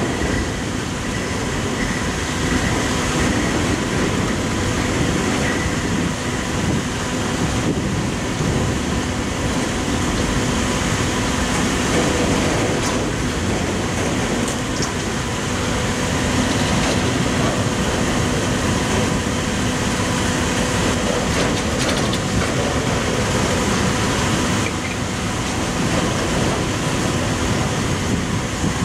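Coal train's gondola cars rolling past on the rails: a steady, continuous rumble and clatter of steel wheels on track, with a few faint steady tones over it.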